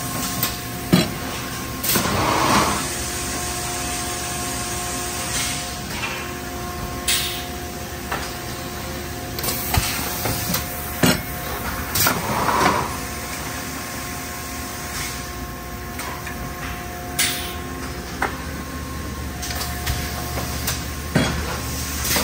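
Industrial machine running through repeating cycles: a steady hum with a steady whine, a roughly one-second burst of air hiss about every ten seconds, and sharp clunks and clicks in between.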